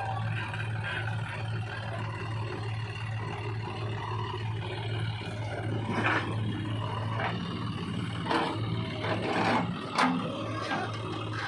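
Heavy diesel engine running steadily at a low hum, with a few sharp clanks in the second half.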